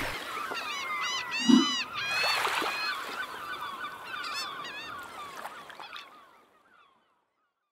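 A flock of birds calling, many overlapping short calls that rise and fall in pitch, with a brief low thump about one and a half seconds in. The calls fade out gradually to silence near the end.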